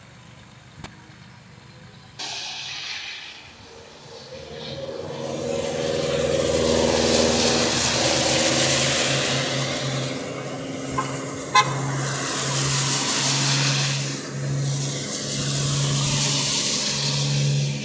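Cars driving past one after another on a wet road, their tyres hissing, the sound swelling and fading about three times. The first two seconds are quieter before the sound jumps up.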